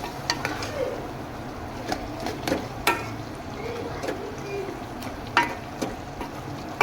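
A metal spoon stirring meat in a cooking pot, scraping and knocking against the pot with irregular sharp clinks.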